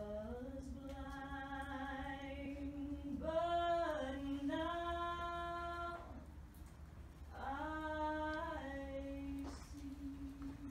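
A Māori woman performer's unaccompanied chanted song in long, held notes: three drawn-out phrases, the first sliding up into its note, each held for a couple of seconds with small steps in pitch.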